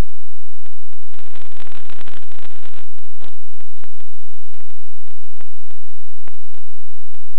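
Static hiss and crackle from an analog FPV video receiver's audio channel, with scattered clicks and a louder rush of noise about a second in.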